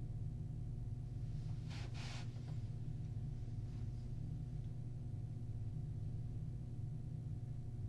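Steady low hum of the interview room's recording, with a short soft hiss about two seconds in.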